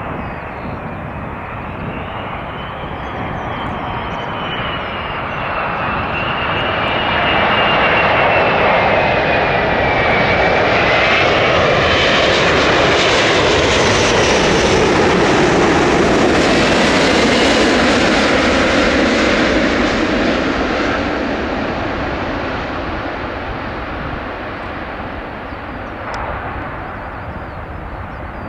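Jet airliner passing by: its engine noise swells to a peak and then fades away, with a high whine that slides down in pitch as the plane goes past.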